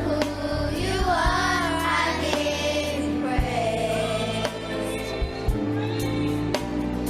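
Gospel worship music: a choir singing over bass and drums.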